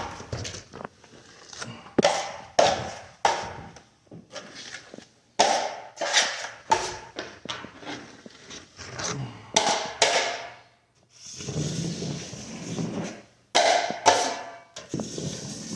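Steel drywall taping knife scraping wet joint compound off the wall and trim in a quick series of short strokes, each starting sharply and fading, with one longer scrape near the end.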